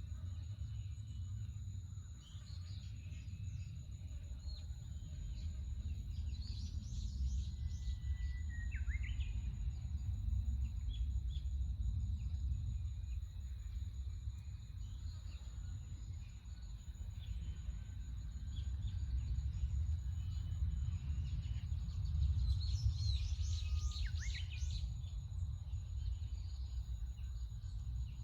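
Birds chirping in a forest over a steady low rumble, with two bursts of quick chirps, each ending in a falling call, about seven seconds in and again a little past twenty seconds in. A thin steady high whine sits under the calls throughout.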